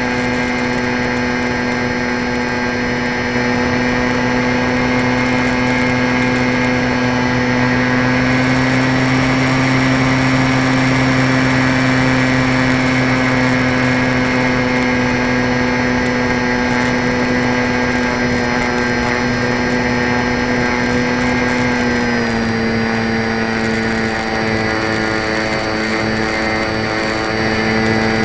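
Electric motor and propeller of a radio-controlled model airplane, heard close up from on board: a steady whine over a rush of air, its pitch dropping a little about three-quarters of the way through as the throttle is eased.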